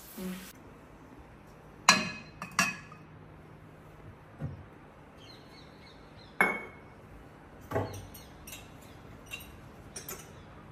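Hard household items clinking and knocking as they are handled and set down during kitchen cleaning: about nine sharp, irregular strikes, the loudest about two seconds in and just after six seconds, one with a short ring.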